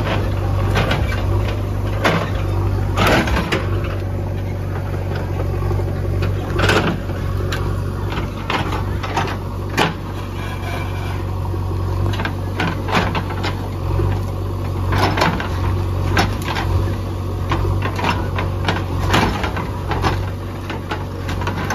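JCB backhoe loader's diesel engine running steadily while the backhoe bucket digs into a tree's root ball. Irregular sharp knocks and cracks come over it as the bucket breaks through roots, earth and stones.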